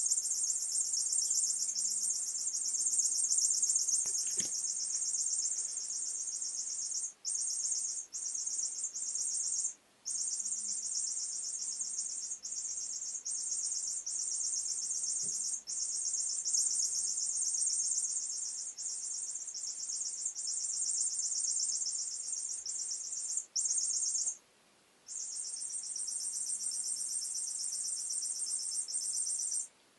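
A squeaking toy play wand giving a continuous, high-pitched chirping trill that breaks off for a moment a few times.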